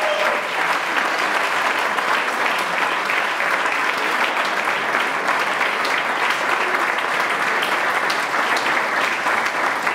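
Audience applauding: steady clapping from many hands.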